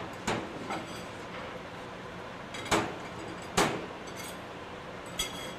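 Plates and metal forks being set down on a stainless-steel counter: about five separate clinks and knocks, some with a short bright ring, the two loudest a little under a second apart in the middle.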